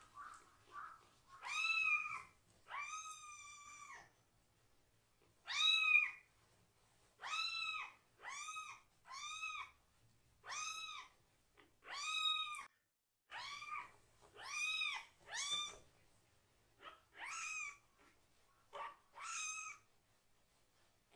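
A very young kitten, still too young to toilet unaided, meowing loudly and repeatedly: about fifteen high calls, each rising and then falling in pitch. These are protest cries from a kitten upset at having just had its bottom washed.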